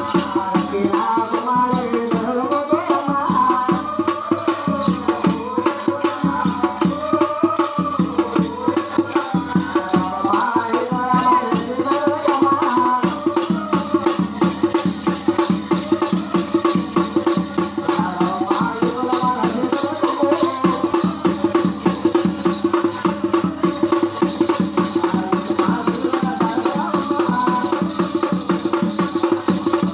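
Fast folk dance music: rapid, steady percussion with a wavering melody line above it.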